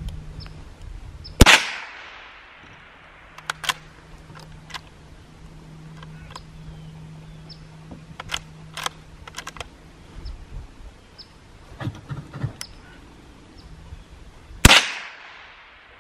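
.22 rifle fired twice, about thirteen seconds apart, each sharp crack followed by a short echo. Small clicks and a faint low hum come in between.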